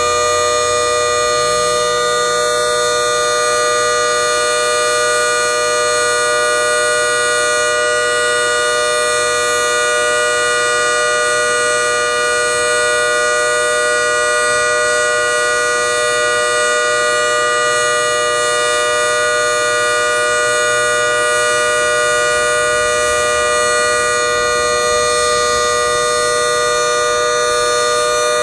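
Federal Signal outdoor warning siren sounding a steady two-note chord at full speed, held level without winding up or down.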